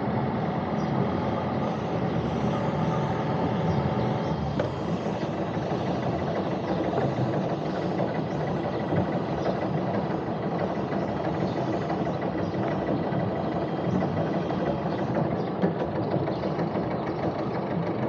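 Sailing boat's engine running steadily at low speed, with no change in pitch.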